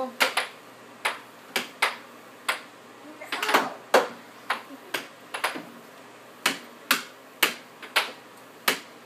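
Air hockey mallet and puck clacking, sharp knocks roughly twice a second at an uneven pace as a child bats the puck against the mallet and the table's rails.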